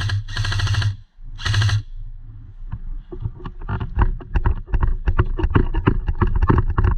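Short bursts of airsoft gun fire in the first two seconds. They are followed by a long run of rapid, irregular clicks and knocks.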